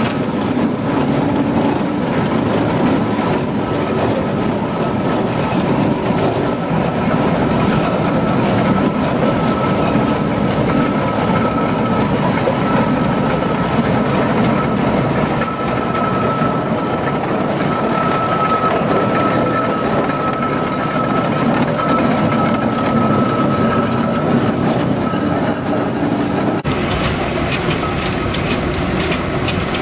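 Steam traction engine running as it drives slowly past, its motion and gearing clattering steadily. About 27 s in, the sound changes abruptly to a lighter, ticking mechanical clatter.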